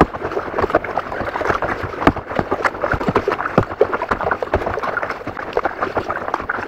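Kayak being paddled: dense, irregular splashing and water slapping against the hull, with small knocks.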